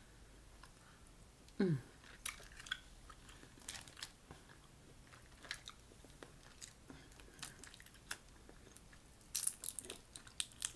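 Boiled crawfish being peeled by hand and eaten: scattered small clicks and crunches of the shells breaking, with chewing. A short falling hum of voice comes about two seconds in, and a quick cluster of sharper cracks comes near the end.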